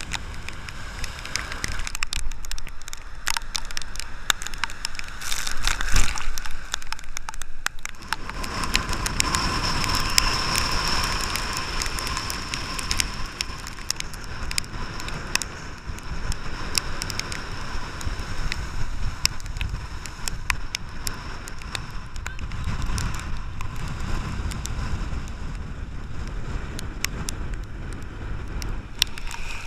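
Rough storm surf breaking and washing in, under strong tropical-storm wind, with frequent sharp crackles of water and wind hitting the camera.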